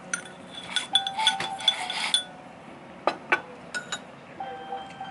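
Ceramic tableware clinking as the rice bowl is handled and scraped clean: a quick run of clinks with a short ring about a second in, then a few separate sharp clicks.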